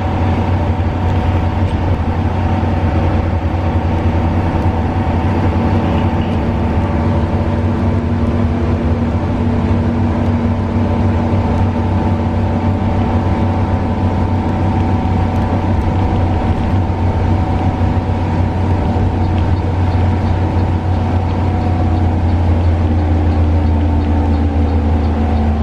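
Front-engined bus's diesel engine running steadily at cruising speed, heard from inside the passenger cabin as a loud, even drone with a strong low hum, over road and tyre noise.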